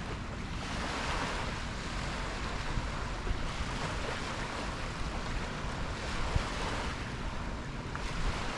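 Ocean surf washing in steadily, a continuous hiss of waves with wind rumbling on the microphone.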